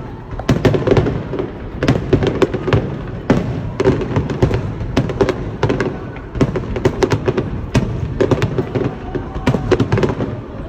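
Aerial fireworks bursting in a rapid barrage, with many sharp bangs and crackles a second over a continuous rumble.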